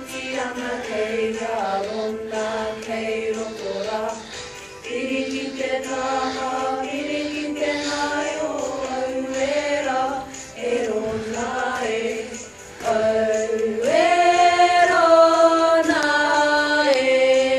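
A group of girls singing a Māori poi song together, in phrases of held notes that rise and fall, with short breaks for breath between them. The singing gets louder about thirteen seconds in and stays there.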